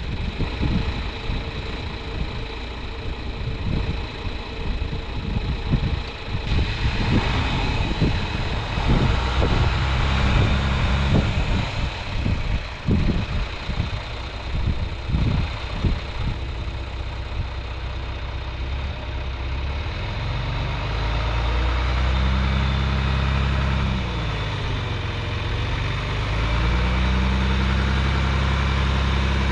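John Deere 2940 tractor's diesel engine running, uneven with irregular knocks through the first half, then settling into a steady run. Its speed drops and rises again about 24 seconds in.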